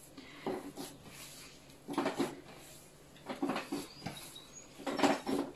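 Hands kneading a soft dough made with pork lard on a tabletop: four short pushes and pats of the dough, about a second and a half apart.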